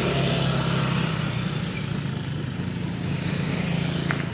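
A Toyota Innova MPV's engine running steadily as it drives slowly over the railway crossing and past, loudest at the start, with motorcycles passing close near the end.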